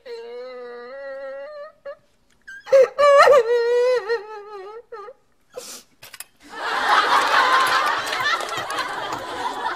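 A woman wailing and sobbing in long, drawn-out cries, broken by a gulping hiccup about five seconds in. For the last three seconds a studio audience laughs loudly.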